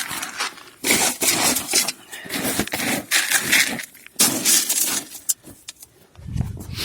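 Dry compound feed and ground spruce needles being stirred together: repeated crunchy rustling and scraping swishes, each about a second long, with a few sharp clicks past the middle.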